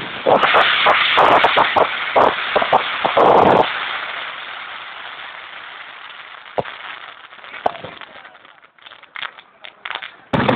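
Aerial fireworks: a dense run of rapid crackling and bangs for about three and a half seconds, fading away into a few scattered pops, then a sudden loud burst near the end.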